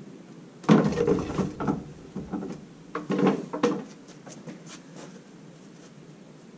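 Wooden guillotine blade being hauled up its wooden uprights by a rope, sliding and knocking in the guide grooves over a few pulls. The loudest knock comes just under a second in, and fainter clicks follow.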